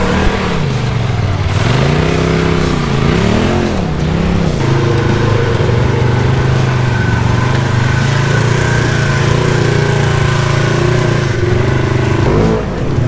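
Side-by-side UTV engine revving up and down a few times, then running at a steady pitch, with a brief dip near the end.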